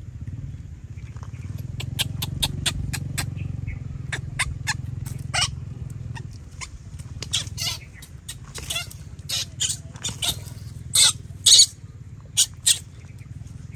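Baby macaques eating watermelon and moving about on a clay plant pot: a run of sharp clicks, wet smacks and crackles, loudest in a few snaps near the end, over a low steady rumble.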